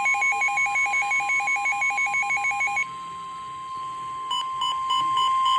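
Weather radio sounding an emergency alert: the steady 1050 Hz NOAA warning alarm tone, with rapid alternating high and low electronic beeps over it for about the first three seconds, then a slower repeating beep joining in near the end.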